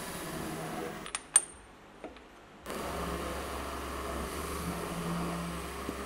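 Milling machine running steadily. It cuts out suddenly about a second in, two sharp metallic clinks ring out in the quieter gap, and the machine starts running again at about two and a half seconds.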